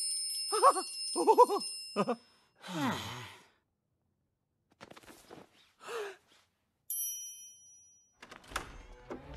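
A struck triangle's ding rings on and fades over the first couple of seconds, overlapped by two short vocal sounds. About three seconds in comes a long sigh falling in pitch, and near the end a second short, bright ding.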